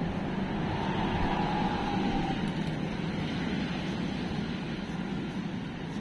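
Steady low outdoor rumble, with a faint falling whine over the first couple of seconds.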